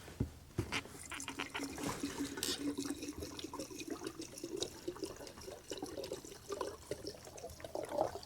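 Liquid being poured with a steady trickle that wavers in pitch, with several sharp clicks near the start.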